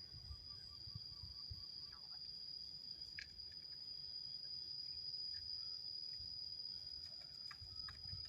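Steady high-pitched insect trill, with a few faint bird chirps: a quick run of small notes in the first couple of seconds and short calls near the end.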